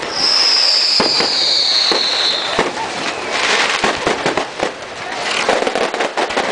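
Fireworks going off: a long whistle falling slightly in pitch for about two and a half seconds, over continuous crackling and many sharp pops.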